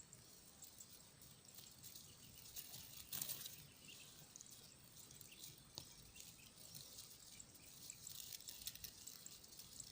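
Faint trickling and dripping of water, with scattered high ticks and one brief louder noise about three seconds in.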